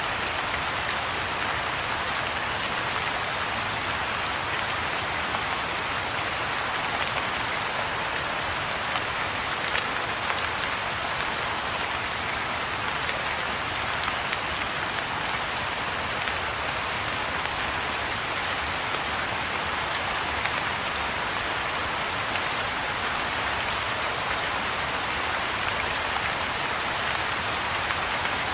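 Soft, steady rain falling on a pond's surface and on the grass and bushes around it.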